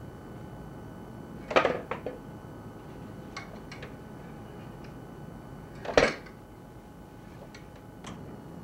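A few sharp clinks and knocks, like dishes or cutlery being handled, the two loudest about a second and a half in and about six seconds in, with lighter ticks between, over a steady faint background hiss.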